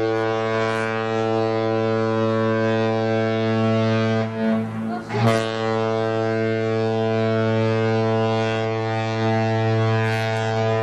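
Ship's horn sounding two long, deep, steady blasts, with a short break about four seconds in.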